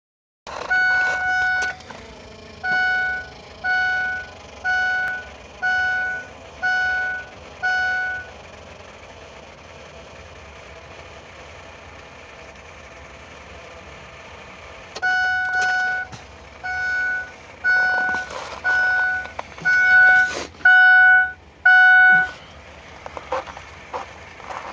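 Ford F-350's warning chime dinging about once a second in two runs of about seven dings each, with a faint steady hum in the gap between them and a few light clicks near the end.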